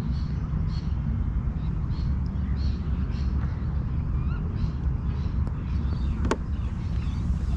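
Steady low rumble of wind on the microphone, with small birds chirping again and again in short high notes, and a single sharp click about six seconds in.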